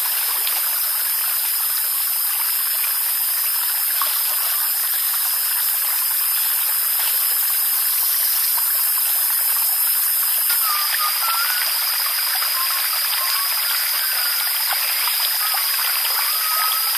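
Steady rush and slosh of water as a man wades deep into a slow forest stream.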